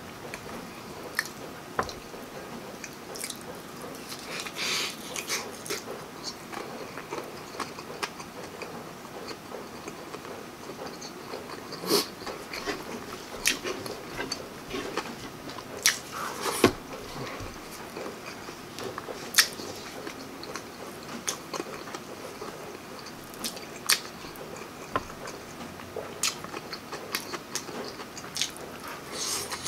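Close-miked eating: wet chewing and lip smacks with scattered sharp clicks, as pieces of barbecued pork and breaded fish fillet in creamy sauce are bitten and chewed.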